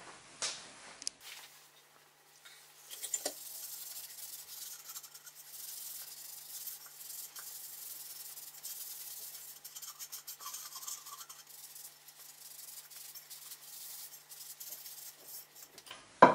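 Dry cloth rubbing over a wooden box to buff off the excess beeswax-and-coconut-oil finish: a continuous scratchy swishing that starts about three seconds in. A sharp knock comes near the end.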